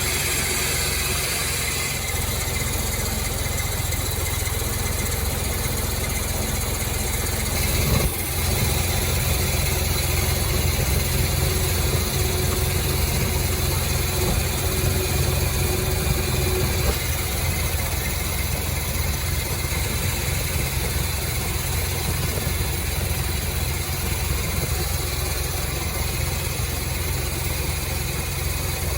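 An engine running steadily with a low hum, with a single brief knock about eight seconds in.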